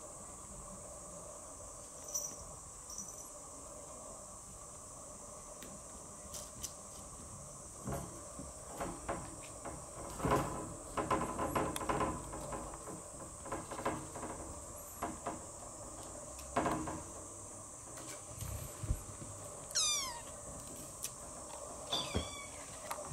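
Young kittens clambering on and pawing at a wire-mesh pen, the wire rattling and clinking in irregular bursts, busiest in the middle. Near the end come short, high kitten mews, one sliding down in pitch.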